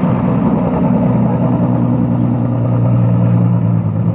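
Engine of a classic banger-racing car running at low revs as the car rolls slowly past, a steady low drone.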